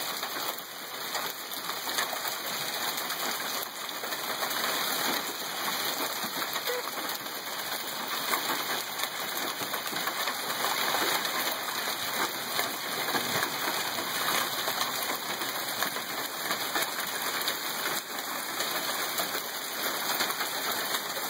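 Hail falling on a roof: a dense, continuous clatter of many small hard impacts that keeps up without a break.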